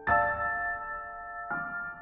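Soft solo piano music: a chord struck at the start and another about one and a half seconds in, each left to ring and fade.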